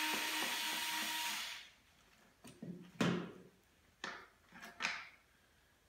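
Cordless drill-driver whirring steadily as it backs a screw out of a stroller's plastic front plate, stopping about a second and a half in. It is followed by a few light knocks and clicks.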